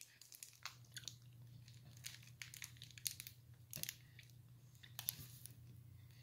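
Faint crinkling of a plastic snack-cake wrapper and quiet biting and chewing of a mixed berry Twinkie, heard as scattered soft clicks and crackles over a faint steady hum.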